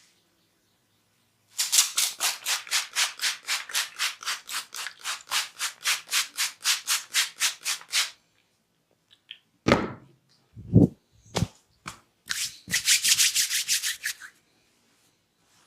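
A barber's hands rubbing briskly over hair and scalp in a head massage, rapid rhythmic strokes at about four a second. A few dull thumps follow, then a shorter, faster run of rubbing.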